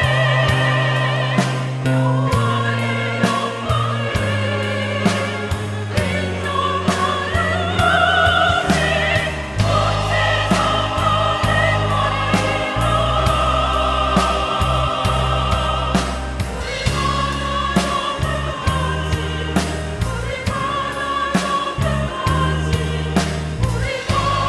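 Church choir singing an anthem in several parts, with wavering held notes over steady low accompaniment notes that change every second or two.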